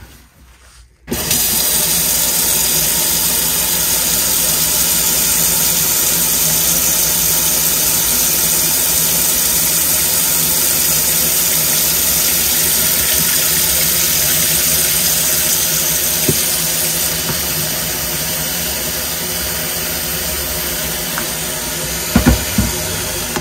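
Kitchen tap turned on about a second in, water running steadily and loudly into the sink. A few sharp knocks near the end.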